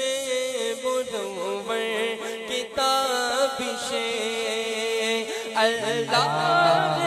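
A man singing a naat into a microphone without instruments, drawing out long ornamented notes between lines of the verse. A steady held drone runs beneath the voice, and a lower drone joins near the end.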